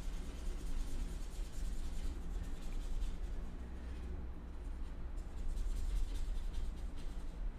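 Soft, uneven scratching of writing strokes on a surface, over a steady low hum.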